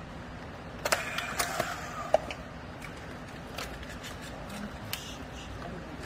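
Handheld strapping tool on plastic baling strap: a cluster of sharp clicks and snaps about a second in, then a few fainter clicks, as the tool is worked and lifted off the strapped bale.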